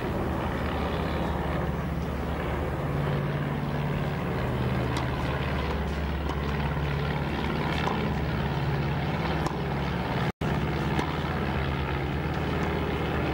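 Steady low hum and hiss of an old television broadcast soundtrack, with a few faint ticks. The sound drops out completely for an instant about ten seconds in.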